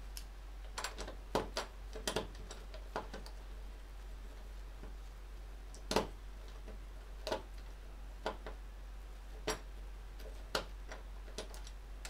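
Scissors blade used as a screwdriver, clicking and scraping in the screw heads of a door knob's mounting plate as its screws are undone. The light metal clicks come at irregular intervals, the sharpest about six seconds in.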